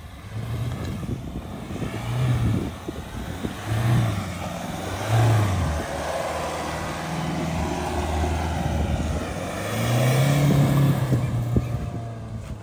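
Mahindra Scorpio Classic's four-cylinder diesel engine revving up and easing off several times as the rear-wheel-drive SUV drives over loose sand, with the strongest surge near the end.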